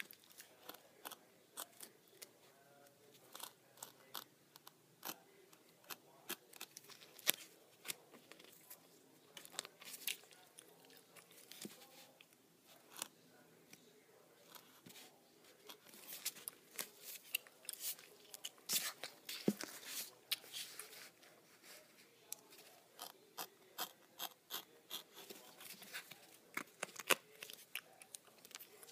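Faint irregular scratchy clicks and scrapes of a craft knife blade cutting yellow strips on a plastic cutting mat, coming thicker in the second half.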